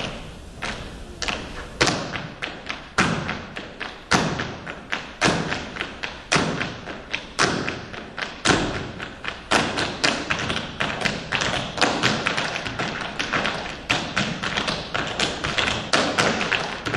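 Rhythmic stomps and taps of percussive dance footwork: sharp strikes on a hard floor, several a second in a shifting pattern, with no melody.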